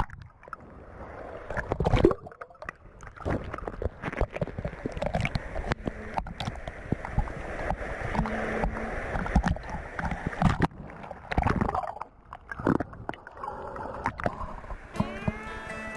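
Sea water sloshing and splashing around a camera held at the water line, with breaking waves against rock and a gurgling, muffled sound whenever the camera dips under the surface. Music comes in near the end.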